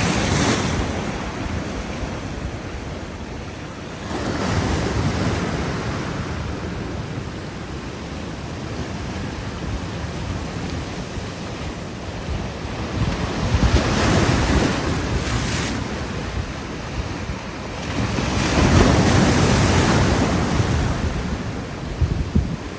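Ocean surf breaking on a sandy beach: a steady wash of waves that swells four times into louder breakers, about a few seconds apart, with wind rumbling on the microphone.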